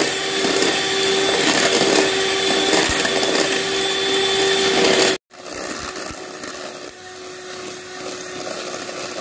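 Handheld electric mixer running steadily, its beaters whipping butter and sugar in an enamel pot, with a steady motor hum. The sound cuts out for a moment about five seconds in and comes back quieter, the mixer still running.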